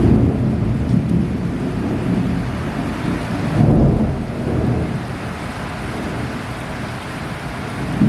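Heavy rain falling steadily, with low rumbles of thunder rolling in: one near the start, the strongest about three and a half seconds in, and another near the end.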